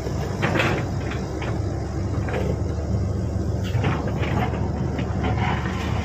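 Shantui SE135 crawler excavator's diesel engine running steadily as the machine swings its boom and lowers the bucket, with scattered clicks and knocks over the low drone.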